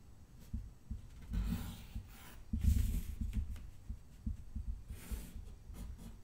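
Pen drawing lines along a clear plastic ruler on paper: a few separate scratchy strokes, with low bumps from the ruler and hands shifting on the sheet.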